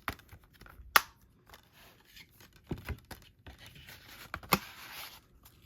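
A Blu-ray case and its plastic packaging being handled and opened: a few sharp clicks and snaps, and a longer tearing, rustling stretch just past the middle.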